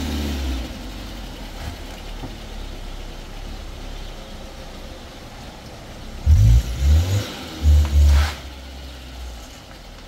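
A car running with a steady low rumble, broken about six seconds in by four loud, deep thumps in quick succession over about two seconds.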